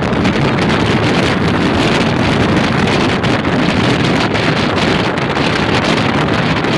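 Wind rushing over the phone's microphone beside a moving car's side window, with steady road and engine noise from the car driving along the highway.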